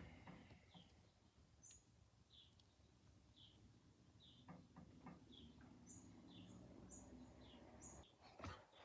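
Faint chirping, like a small bird calling: short high notes repeating about once or twice a second, with a few soft clicks among them.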